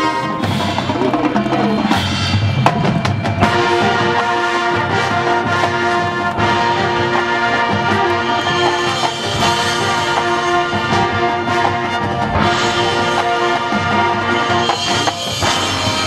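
Marching band playing live: the brass section holds sustained chords over drums and front-ensemble percussion, the full brass sound building from about three seconds in.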